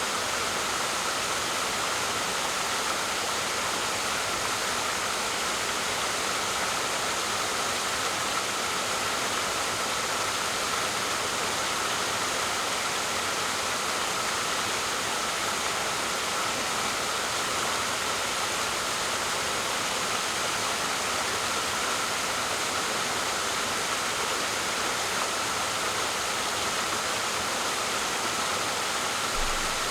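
A waterfall pouring: a steady, even rush of falling water.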